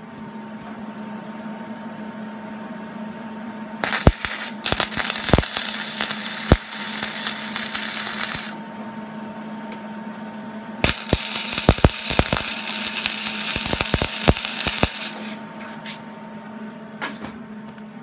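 Wire-feed welder laying two short tack welds on steel, each a few seconds of steady crackling sizzle. The first starts about four seconds in and the second about eleven seconds in. A steady hum runs underneath.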